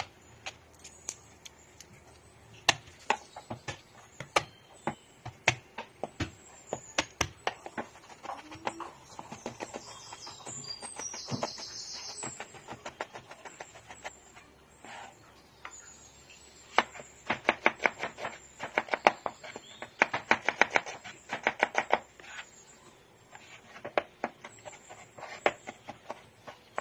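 Kitchen knife chopping on a wooden cutting board, cutting pechay and then mincing and slicing. The strikes come singly and unevenly at first, then in fast runs of rapid chopping through the middle and later part, with a brief hiss partway through.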